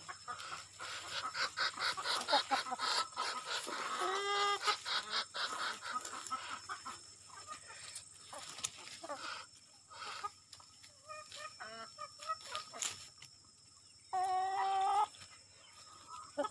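Chickens clucking, with quick runs of clucks in the first few seconds and a couple of longer held calls, one about four seconds in and one near the end.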